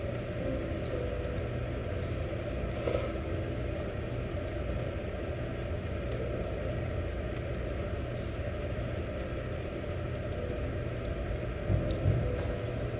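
Steady low rumble from a tabletop yakiniku grill and its extraction, with one light clink about three seconds in.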